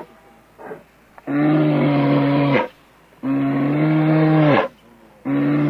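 Cow mooing: three long moos in a row, each held at an even pitch and dropping away at the end.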